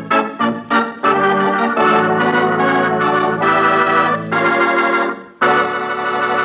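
Organ playing a music bridge: a run of short, quick chords, then long held chords, with a brief drop just after five seconds before a final held chord.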